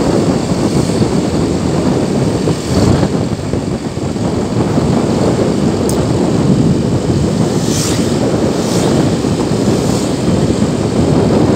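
Wind rushing over the microphone together with the steady engine and road noise of a motorcycle being ridden, a loud, constant rumble with no let-up.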